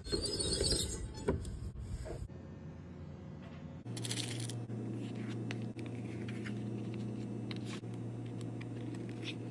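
Metal rivets jingling and clinking as a finger rakes through a compartment of a plastic organizer, a short burst about four seconds in. Before it there is noise from a leather machine, and after it soft handling sounds over a steady low hum.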